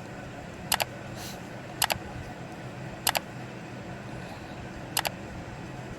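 Four sharp double clicks spaced one to two seconds apart, over a steady low hum of room noise.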